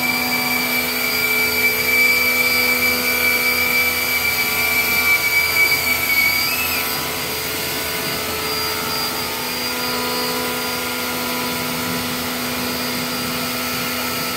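APR AP73 electric pressure washer running, its motor whining steadily under the hiss of the water jet while snow foam is rinsed off. About halfway through a high note in the whine drops out and the sound eases slightly.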